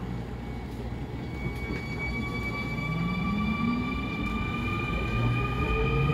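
Electric subway train pulling away: its traction motors and inverter whine in several tones that rise steadily in pitch as it accelerates, over a low running rumble that slowly grows louder.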